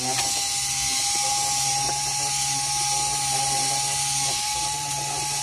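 Small electric motor of a Simplicity bias tape maker switching on and running with a steady whine, turning the cartridge as fishing line winds onto it.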